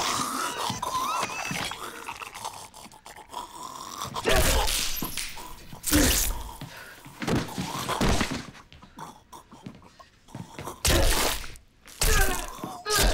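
Heavy blows striking a zombie's head, several loud thuds spaced a second or more apart, with a woman's strained cries in between.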